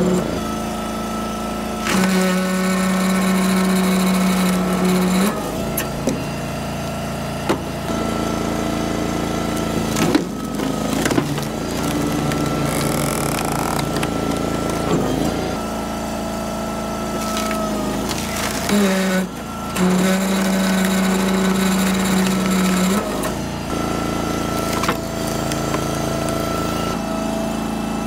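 Background music: sustained notes and chords that change every few seconds.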